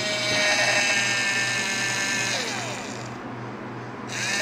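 Play-Doh Drill 'n Fill toy dentist drill whining as its small motor spins for about two and a half seconds. It then winds down with falling pitch and starts up again near the end.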